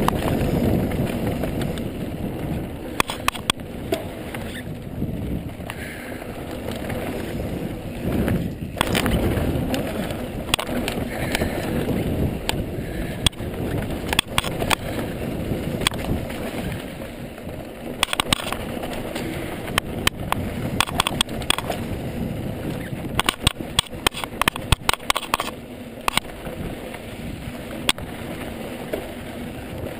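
Mountain bike rolling fast down a dry dirt trail: wind buffeting the microphone and tyres on dirt make a steady rumble. Sharp clicks and rattles from the bike hitting bumps come and go, thickest in the second half.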